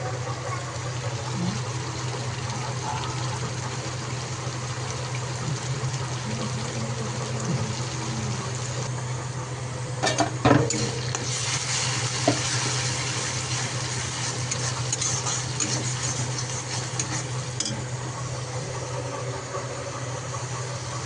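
Fish frying in a pan of hot oil, sizzling steadily over a steady low hum. About ten seconds in a utensil clinks against the pan a few times, and the sizzling then grows stronger for several seconds.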